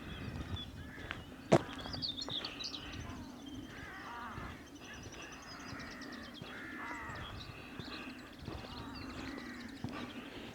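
Crows cawing over and over, harsh calls coming one after another as the birds squabble. A single sharp knock about a second and a half in is louder than the calls.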